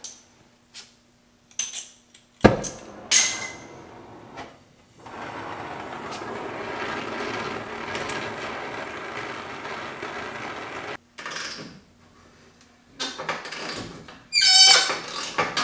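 An oxy-acetylene torch is lit with a sharp pop. Its flame then hisses steadily for about six seconds as it heats a seized bolt on the truck's front suspension, and it is shut off abruptly. Near the end comes a run of loud squeaking metal sounds.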